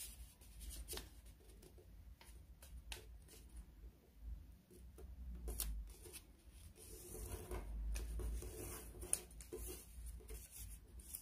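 A square sheet of origami paper being folded by hand on a tabletop: faint paper rustling, with scattered short crisp clicks as fingers press the folds flat.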